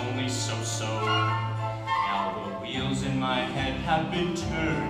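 Musical-theatre accompaniment for a stage show number. A steady low bass note holds for about the first two seconds, then the bass moves in shorter notes under the melody.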